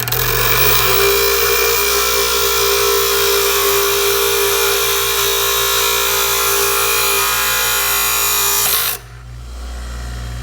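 Grinder running and grinding away the copper crimp ring on a 1/2 inch PEX fitting: a loud, steady grinding noise that stops abruptly near the end, leaving a low hum.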